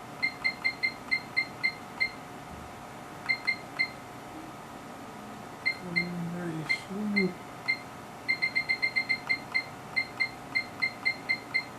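HP 3245A universal source's front-panel beeper giving short, identical high beeps as its menu keys are pressed: a few loose groups, then a fast run of about a dozen near the end.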